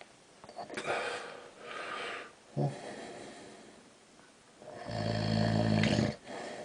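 A sleeping man snoring: two breathy breaths in the first couple of seconds, a brief snore about halfway, then a long, loud, low snore near the end.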